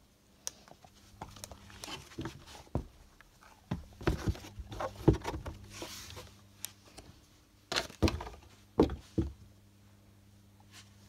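Handling noise as a phone camera and a rubber shark hand puppet are moved about: scattered knocks, bumps and rubbing, clustered around the middle and again near the two-thirds mark, over a faint steady low hum.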